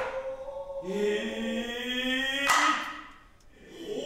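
Noh chanting (utai): a male voice holds long, slowly wavering tones, sliding between pitches, breaking off with a breath and a brief pause about three seconds in before resuming.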